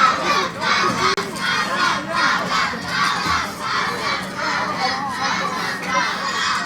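Large crowd cheering and shouting, many voices at once, the roar swelling and dipping continuously.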